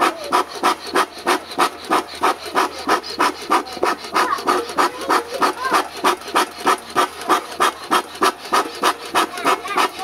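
Bee smoker used as a hand bellows, pumped steadily at about three puffs a second to blow air into burning charcoal, each stroke a breathy whoosh of air.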